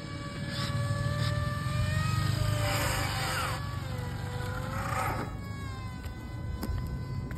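Electric RC speed-run car driving back across asphalt at low speed: its motor whine rises and falls in pitch over a low rumble from the tyres.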